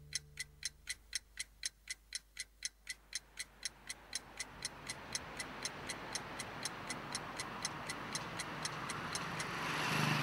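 Ticking clock, about four sharp ticks a second, with a noisy swell rising under it from about three seconds in and growing louder toward the end.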